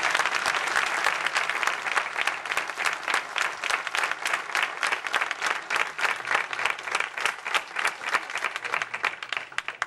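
Audience applauding, a dense steady clapping that thins out slightly near the end and stops just before it closes.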